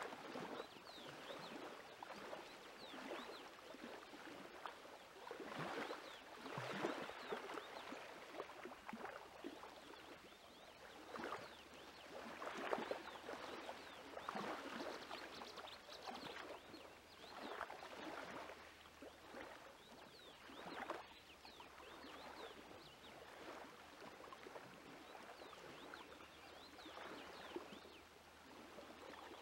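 Faint lakeshore ambience: water lapping in uneven swells every second or two, with many short high chirps scattered throughout.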